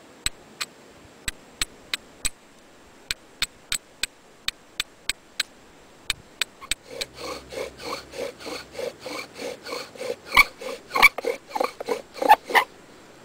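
Steel striker scraped against flint, about eighteen sharp clicks at two to three a second, throwing sparks onto cattail-fluff tinder. About two-thirds of the way in it gives way to a bow drill sawing back and forth in quick, squeaking strokes, about four a second, louder in the last couple of seconds before it stops.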